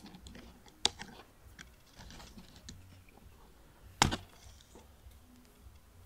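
Steel pliers clicking and scraping against the metal end of a MagSafe charger connector as they grip it to pull off the metal contact part. There are two sharp clicks, a small one about a second in and a much louder one at about four seconds, with light handling noise between them.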